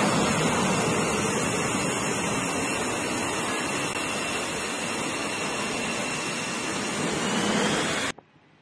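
F/A-18 fighter jet's engines running as it taxis: a steady, loud rush of exhaust noise with a faint high turbine whine held over it. It cuts off abruptly near the end.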